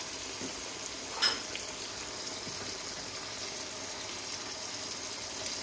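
Tomatoes sizzling steadily in hot oil in a pan, with a metal spoon or fork clinking once against the pan about a second in and a short click near the end.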